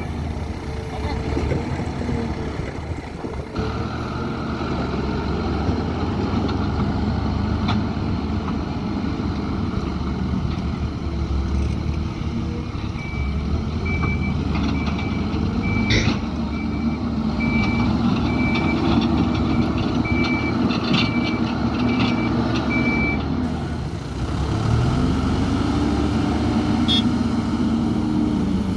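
Hidromek 102S backhoe loader's diesel engine working under changing load, with its reversing alarm beeping steadily at the start and again for about ten seconds in the middle. A single sharp metallic clank comes about midway, and the engine revs up again near the end.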